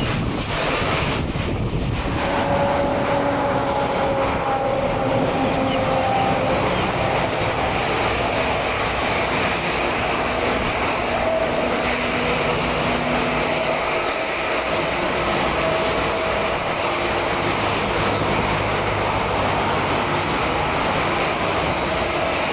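Jet airliner's engines running during a landing: a steady, loud rush with whining tones that slowly fall in pitch.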